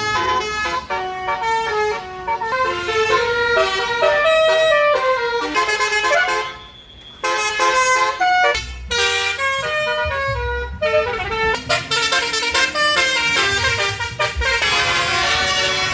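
Tour bus basuri telolet horns playing a fast melody of short tuned blasts that change pitch several times a second, with a brief break about six and a half seconds in.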